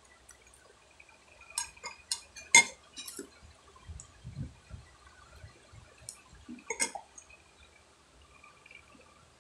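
Close-up eating and drinking sounds: short, sharp wet clicks and smacks in a cluster from about one and a half to three seconds in and again about six and a half seconds in, with soft low thumps between.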